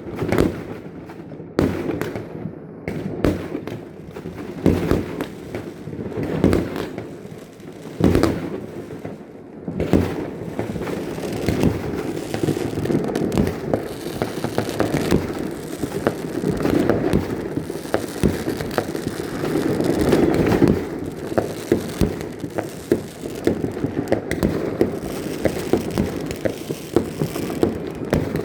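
Fireworks going off: separate bangs every second or two, then from about ten seconds in a denser run of crackling with bangs mixed in.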